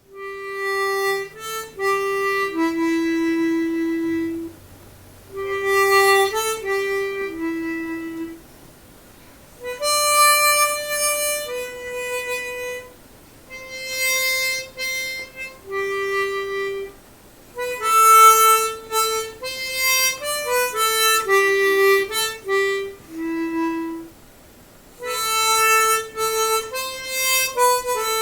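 Solo harmonica playing a slow melody one note at a time, in phrases of a few seconds with short pauses between them.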